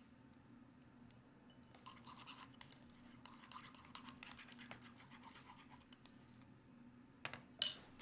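Faint rapid scratching and scraping strokes, then two sharp clicks near the end.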